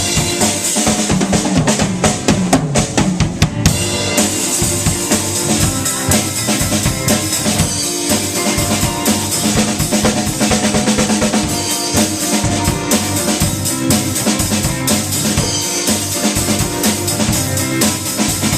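Live band playing an instrumental passage with no vocals, the drum kit to the fore, bass drum and snare keeping a steady beat under pitched instruments.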